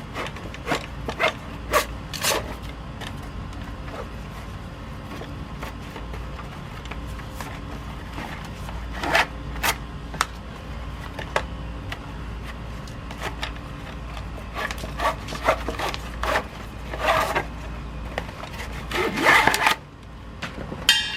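A cam band strap being worked loose and pulled out through the holes of a scuba tank boot: scattered rubs, scrapes and light clicks, in a few clusters, with the longest and loudest scraping near the end. A steady low hum runs underneath.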